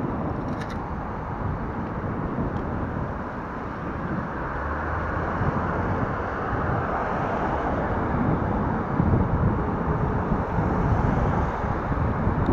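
Steady rush of wind on the microphone with road noise from a recumbent bike moving along a city street among car traffic. The low rumble swells about nine seconds in.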